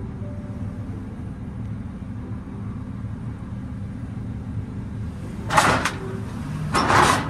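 Steady low rumble of a car-hauler truck's engine idling, while a Toyota Corolla drives up to the trailer's loading ramps. Past five seconds in, there are two loud, short bursts of noise about a second apart as the car reaches the ramps.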